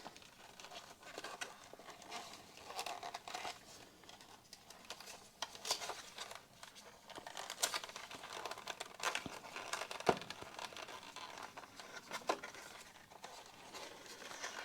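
Product packaging being handled and worked open by hand: irregular crinkling and rustling with scattered small clicks.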